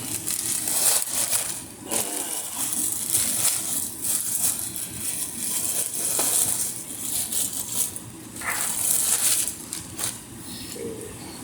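Plastic packaging crinkling and rustling in irregular bursts as it is handled and opened.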